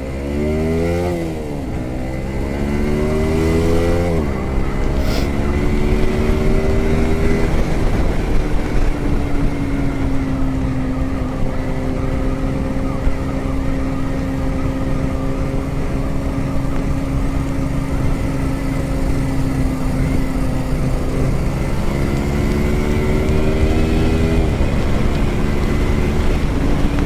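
Yamaha R15M's 155 cc single-cylinder engine accelerating through the gears on the move: the revs climb steeply and fall back at each upshift three times. It then holds a steady pitch at cruising speed before one more climb and shift near the end.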